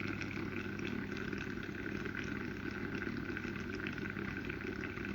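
Water boiling inside a Control D electric steam vaporizer: a steady bubbling hiss with fine crackling, over a low steady hum.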